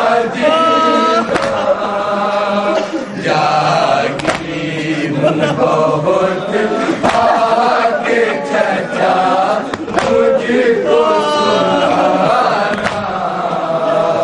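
Men chanting an Urdu nauha (Shia mourning lament), a lead reciter on a microphone carrying the melody with the group behind him, over sharp thuds of open hands striking chests in matam.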